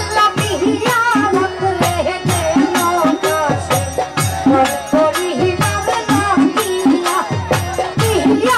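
Live Bengali folk music for a jari song, with a steady, quick drum beat, rattling percussion and a wavering melody line over it.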